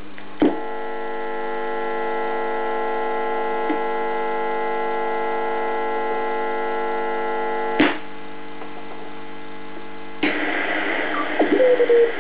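A BC-312G shortwave receiver's speaker gives a steady, many-toned hum. It begins with a switch click about half a second in and stops with another click near 8 s. About two seconds later loud band static comes up as the receiver is tuned, with a wavering tone in it near the end.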